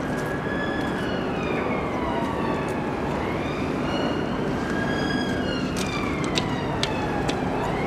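An emergency vehicle siren wailing in slow rising and falling sweeps over a steady background noise. A few sharp clacks of stones knock against each other between about five and seven seconds in.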